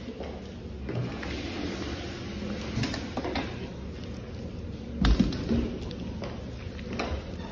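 Handling noise from a phone being moved against clothing: irregular rubbing and small knocks, with one heavy thump about five seconds in.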